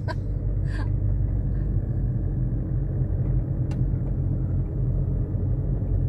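Car driving on a paved road, heard from inside the cabin: a steady low rumble of engine and tyre noise, with one faint click about two thirds of the way through.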